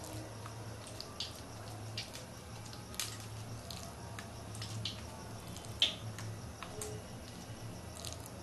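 Soft squishing and scattered light clicks as hands press and flatten a half-fried onion fritter (piyaji) of gram-flour batter, one click a little louder about six seconds in, over a faint steady low hum.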